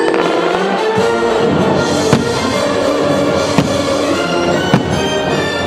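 Fireworks show music playing loudly, with firework shells bursting in sharp bangs about two seconds in, at about three and a half seconds and near five seconds.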